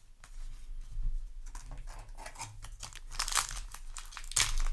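Foil booster-pack wrapper of Yu-Gi-Oh! cards crinkling as it is handled and torn open. It makes a rapid crackle that gets busier about a second and a half in, with a couple of louder rips near the end.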